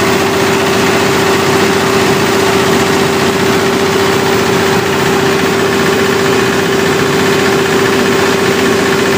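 Olympian 75 kW generator's Perkins turbocharged four-cylinder diesel running steadily under about 75 kW of load bank load, with a steady whine over the engine. It is running smooth.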